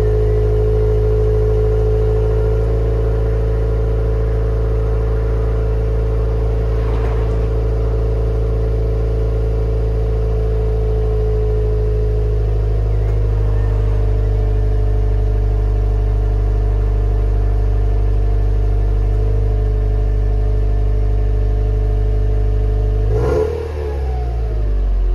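Subaru Legacy BP5 GT Spec-B's turbocharged 2.0-litre flat-four idling steadily at the tailpipes, through a standard exhaust with an HKS downpipe. Near the end the note dips and wavers briefly.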